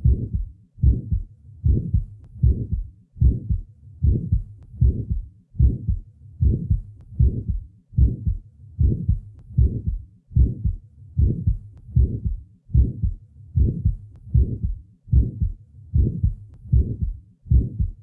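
Stethoscope recording of a young woman's heart at the left lateral sternal border, beating steadily at about 75 a minute. Each beat has an early systolic murmur that starts with the first heart sound and fades by mid-systole, the murmur of a small muscular ventricular septal defect.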